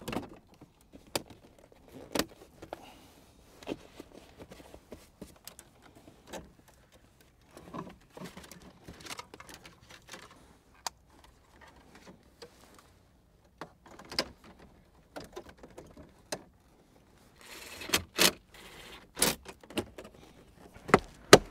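Plastic dashboard trim and wiring of a BMW Z4 being handled during reassembly: scattered light clicks, taps and knocks. Near the end comes a run of louder, sharp clicks as a dashboard trim panel is pressed into place.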